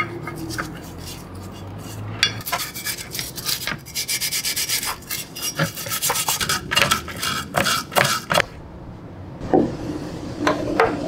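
A stiff brush scrubbing paint remover over the rusty cast-iron body of a Darex No 8 cabinet scraper plane, in quick scratchy back-and-forth strokes. The scrubbing stops, then a couple of knocks follow near the end.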